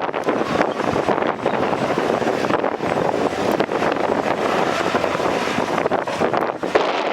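Diesel engine of heavy earthmoving machinery running steadily, with wind buffeting the microphone.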